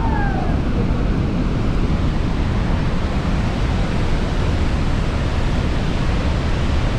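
Niagara's Horseshoe Falls pouring down close by: a steady, loud rushing of falling water, mixed with wind and spray on the microphone.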